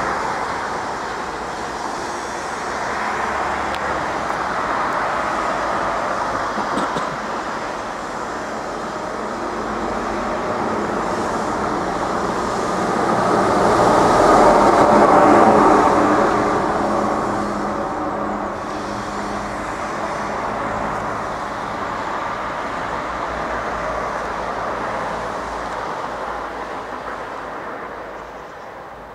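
Train passing over a level crossing: a continuous rumble of the rolling train, loudest about halfway through and fading away near the end.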